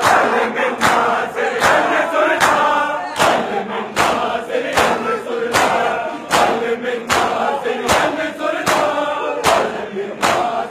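A large crowd chanting a noha in unison while doing matam, beating their chests with both hands in time. The slaps are sharp and loud, about two a second, over the chant.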